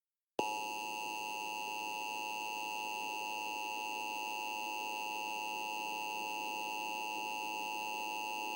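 Emergency Alert System attention signal: a steady, shrill electronic alert tone that starts abruptly, holds unchanged for about eight seconds and cuts off, announcing an emergency alert broadcast.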